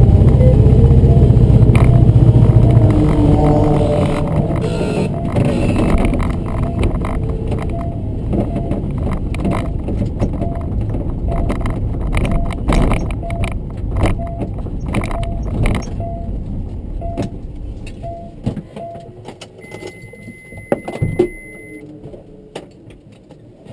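Honda S2000 with a blown engine, heard from inside the cabin: a loud low rumble for the first three seconds or so, then the noise fades steadily as the car slows to a stop, with rattles and clicks in the cabin. A faint tone repeats about once a second through the middle.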